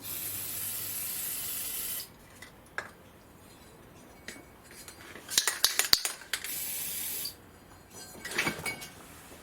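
Aerosol spray adhesive hissing in a steady two-second burst, then a second, shorter burst about six seconds in. Sharp metallic clinks and clicks come between and after the bursts.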